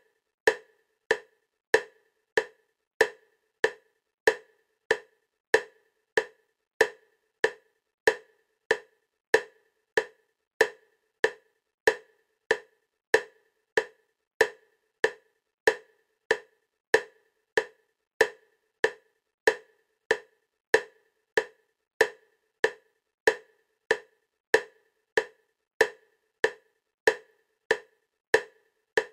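Bilateral-stimulation clicks for EMDR: short, sharp clicks at a steady 96 beats a minute, alternating side to side.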